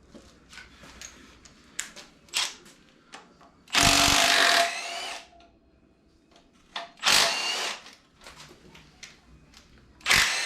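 Power tool running in three bursts, spinning off the 15 mm bolts of an LS 5.3 engine's front accessories: about a second just before the middle, a shorter burst a few seconds later, and a brief one near the end. Between bursts, light clicks and clinks of tools and parts.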